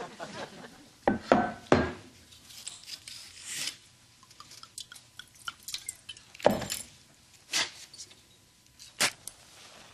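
Kitchen handling sounds: a handful of short knocks and clinks of a glass bottle and cooking pot on the stovetop counter, spaced a second or more apart, with a brief soft hiss of liquid being poured into the pot.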